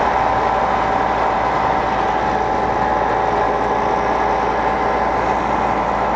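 Cement pumping unit running steadily while pumping oilfield cement slurry through the test line: a loud, even engine-and-pump drone with a constant whine.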